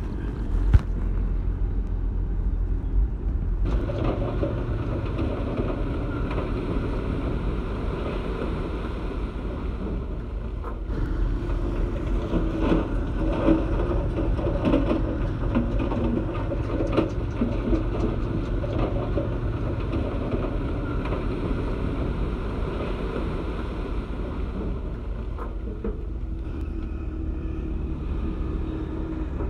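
Heavy diesel machinery, dump trucks and a bulldozer, running with a steady low rumble. It gets louder about four seconds in, and scattered knocks and rattles come through the middle stretch.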